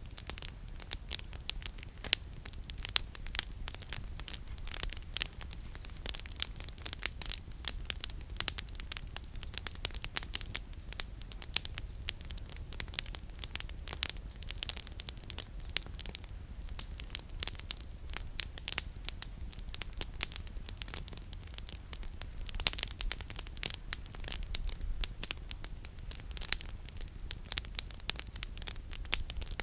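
Campfire burning, its firewood crackling in many sharp, irregular pops, over a steady low rumble.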